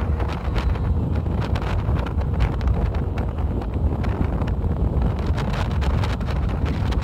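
Wind buffeting the microphone aboard a boat: a steady low rumble with frequent crackles.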